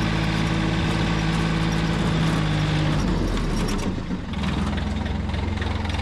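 Three-cylinder Yanmar diesel engine of a rubber-tracked dumper running steadily. About three to four seconds in, its note changes to a lower, different steady sound.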